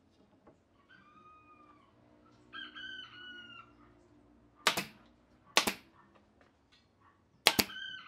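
Brad nailer firing nails through a pine strip into a wooden slab: two sharp shots about a second apart past the middle, then a quick pair near the end. Before them, two faint drawn-out pitched calls sound in the background, the second longer.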